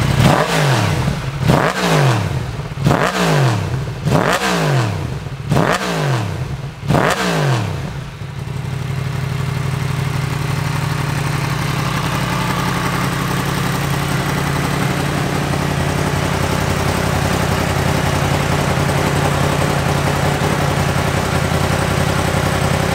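Yamaha MT-10 SP's 998 cc crossplane inline-four engine revved six times in quick blips, each rising and falling, about one every 1.3 s. It then settles into a steady idle for the rest of the time.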